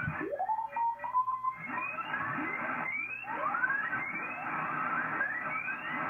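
Morse code (CW) contest signals on the 160-metre band heard through an Icom IC-756 transceiver's speaker as the tuning knob is turned: many keyed tones glide up in pitch one after another over a steady band hiss.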